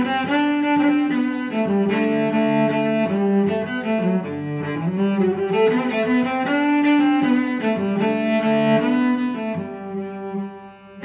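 Background instrumental music of bowed strings, a melody of held notes that changes about once a second, dipping briefly near the end.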